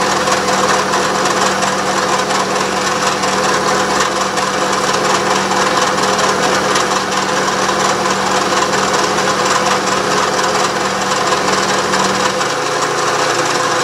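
Milling machine taking a slow-fed climb-milling finish pass along an aluminium block with a 3/8-inch ball end mill at about 600 RPM: a steady machine hum with the hiss and rasp of the cut. A low hum drops out near the end.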